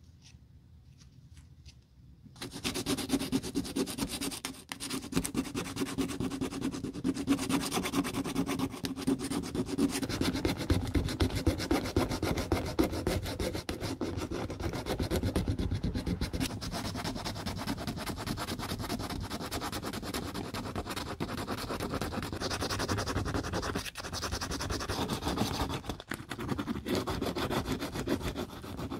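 Sandpaper rubbed by hand back and forth over a hollow plastic shoe heel, smoothing down dog-bite damage: a continuous scratchy rasp that starts about two seconds in.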